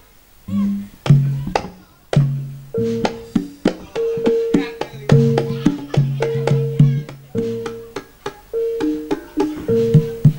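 Campursari ensemble playing: sharp drum strokes and short, steady pitched notes that start about half a second in and settle into a regular, busier rhythm a few seconds later.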